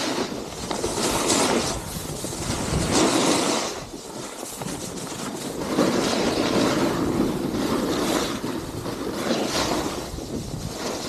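Wind rushing over the microphone with a snowboard scraping across the snow while riding downhill, the noise swelling and fading every couple of seconds.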